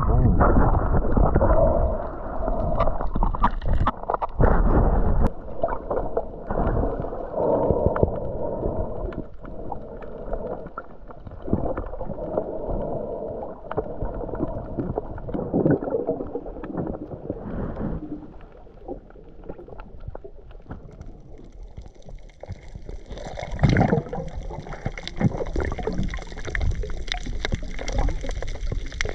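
Muffled underwater sound picked up by a submerged action camera: water moving and bubbling around a snorkeler, with scattered knocks and one louder knock about two-thirds of the way through.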